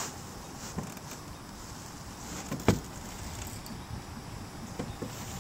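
An angler handling a spinning rod and reel: a brief swish at the start, then a few light clicks and one sharp louder click a little under three seconds in, over a steady outdoor hiss.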